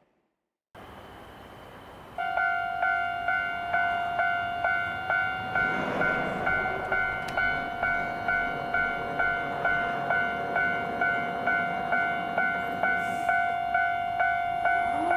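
Railway level-crossing warning bell starting about two seconds in and ringing in an even, steady rhythm of about two and a half strikes a second, warning of an approaching train.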